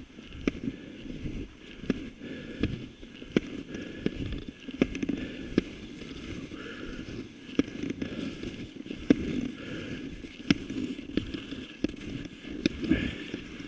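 Åsnes skis sliding and scraping over snow in a steady striding rhythm, with sharp clicks every second or so.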